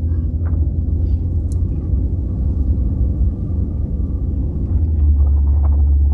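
Steady low rumble of wind buffeting the microphone, growing stronger about five seconds in.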